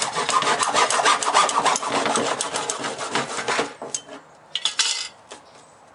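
Hacksaw cutting through a plastic knockout nipple on a corrugated plastic sump liner: fast back-and-forth rasping strokes that stop about three and a half seconds in as the nipple comes free, then one short scrape about a second later.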